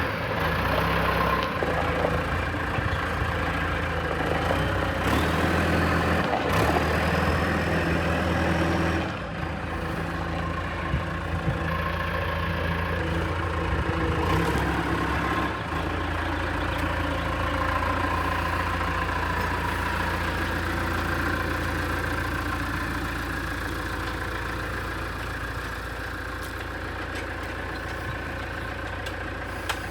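John Deere 410G backhoe loader's diesel engine running steadily. Its sound drops somewhat about nine seconds in, and its low note shifts again a few seconds later.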